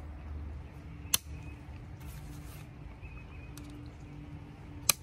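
Plastic tent clips snapping onto a tent pole: two sharp clicks, one about a second in and one near the end, over a low steady hum.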